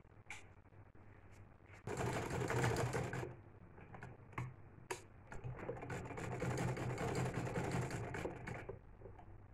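Sewing machine stitching in two runs, the first about a second and a half long and the second about three seconds, with a few sharp clicks between them.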